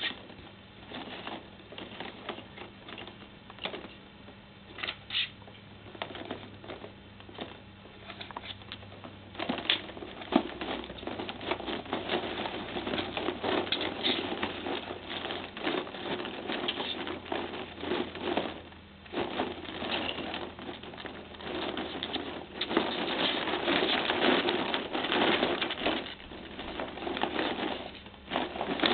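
Plastic ping pong balls clattering and rattling against one another and the cardboard box as two ferrets dig and burrow through them. The rattling grows busier about ten seconds in and again in the last third.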